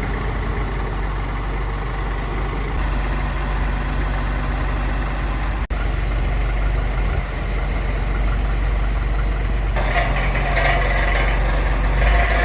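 Forklift engine running steadily while the ride's heavy arms are lifted, with a higher-pitched whine added for the last couple of seconds.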